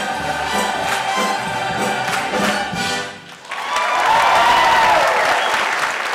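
Musical-theatre ensemble singing with a pit orchestra. About three seconds in the music breaks off briefly, then the cast and orchestra hold one long, loud final chord.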